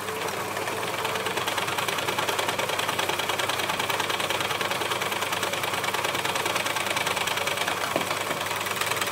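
Elna L4 four-thread overlocker running at a steady speed, stitching through four layers of upholstery fabric with a fast, even mechanical rattle. It is sewing fine.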